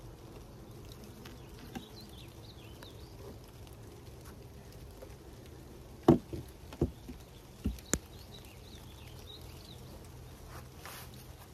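Light rain pattering steadily. About six seconds in, four sharp knocks come over two seconds, from the wooden beehive boxes and inner cover being set and shifted into place.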